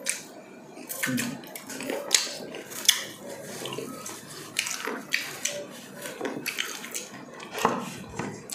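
Close-up wet chewing and lip-smacking of people eating with their fingers, with irregular sharp smacks and clicks.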